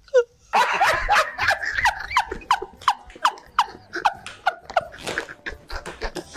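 A woman's high-pitched, squealing laughter: a quick run of short squeaks that fall in pitch, about three a second, with breathy gasps between them.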